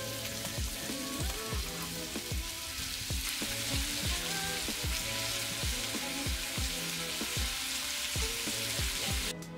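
Meat sizzling in a hot cast-iron skillet over a charcoal fire: a steady, rain-like hiss that cuts off suddenly near the end.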